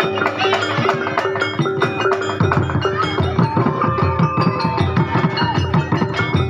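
Music with percussion and tuned, bell-like instruments; a low, heavy drum beat comes in about two and a half seconds in.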